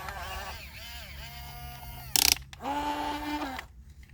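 Small electric motors of a remote-control excavator whining, their pitch rising, holding and falling as the machine moves, with a sharp loud knock about two seconds in.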